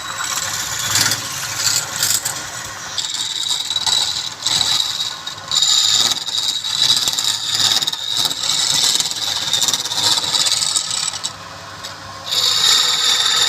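Wood spinning on a lathe with a turning tool scraping and cutting into it, a loud, hissing scrape that swells and eases as the tool moves, dropping away for about a second near the end before starting again.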